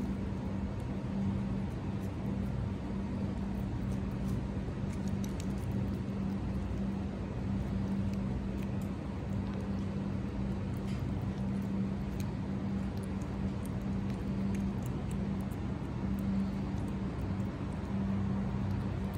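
A steady low hum, with faint soft clicks of a cat licking paste from a squeeze-tube treat.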